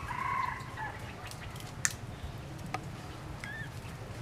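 Short high-pitched animal calls: one pitched call of about half a second at the start and a brief chirp about three and a half seconds in. Two sharp clicks fall between them, over a low steady rumble.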